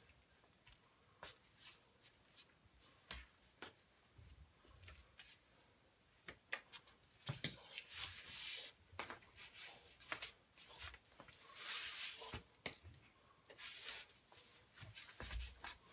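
Wooden nunchucks swung through the air: several swishes of air and scattered sharp clicks and knocks, growing busier in the second half.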